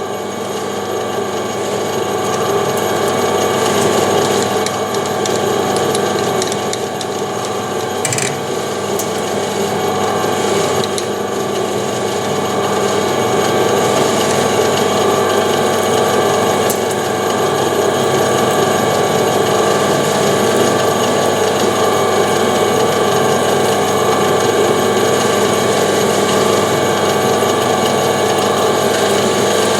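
Metal lathe running at its slowest speed, 100 RPM, with a steady gear whine while a 10 mm reamer is worked through the hole. There is a single short click about eight seconds in.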